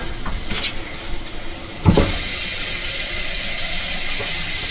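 A click about two seconds in, then water running steadily from a tap, filling a water bottle.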